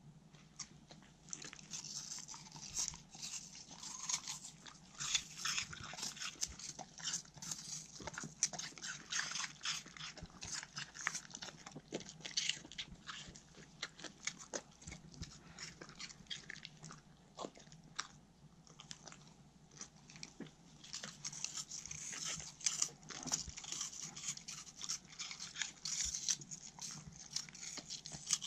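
Two Pembroke Welsh corgis crunching and chewing pieces of raw apple: a quick, steady run of crisp crunches, busiest near the end.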